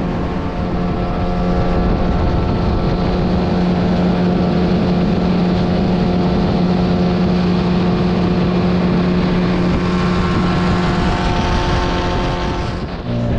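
Outboard motor of an inflatable boat running steadily at speed, with a constant engine note over the rush of water along the hull.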